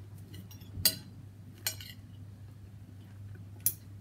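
Metal cutlery clinking against a plate, three sharp clinks and a few lighter taps, over a steady low hum.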